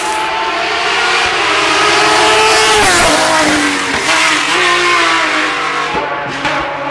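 A rally car's engine at high revs, accelerating hard along the stage and passing close by. It is loudest about two to three seconds in; there its pitch falls sharply, then climbs again.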